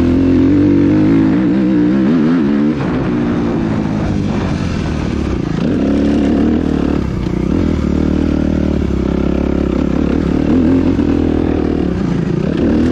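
Motocross dirt bike's engine running under load on a dirt track, revs rising and falling with the throttle and easing off briefly about three seconds in.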